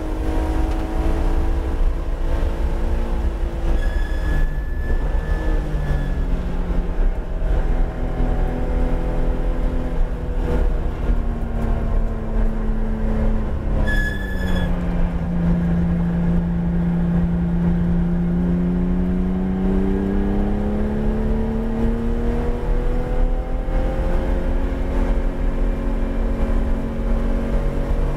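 Porsche 911 GT3 RS's flat-six engine heard from inside the cabin: its pitch drops in steps as the car brakes and downshifts from high speed into a slow corner, then climbs steadily as it pulls hard out of the corner. A brief high tone sounds twice, about four seconds in and again midway.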